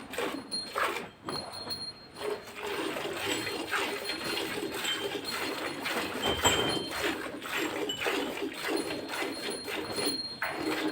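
A cow being milked: milk squirting into a pail in a steady rhythm, a few strokes a second.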